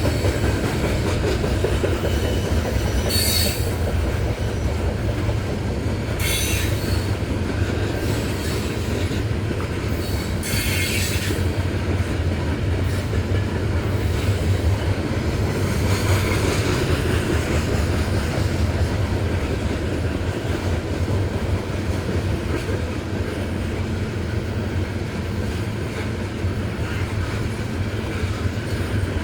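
Loaded coal freight train of gondolas and hoppers rolling past with a steady heavy rumble of wheels on rail. Short wheel squeals break in about three times in the first dozen seconds.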